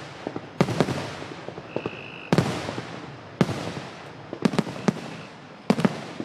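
Fireworks finale: aerial shells bursting one after another in sharp bangs, about one a second with some in quick pairs, each trailing off in a fading echo and crackle.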